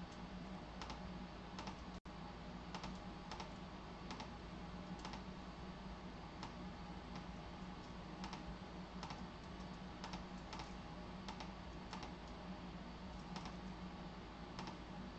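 Irregular keystrokes on a computer keyboard, about one or two clicks a second, over a steady low hum.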